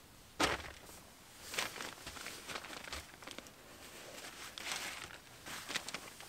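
Irregular rustling and crinkling of a groundsheet and gear as someone shifts and steps about on it, in short bursts with quiet gaps between.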